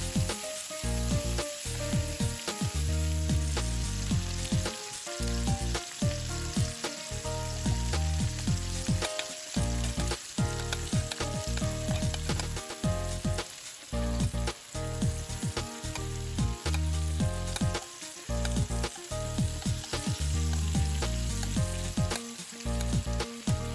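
Lamb loin chops sizzling in melted butter in a nonstick skillet, with a metal spoon scraping and tapping the pan as the butter is basted over the chops.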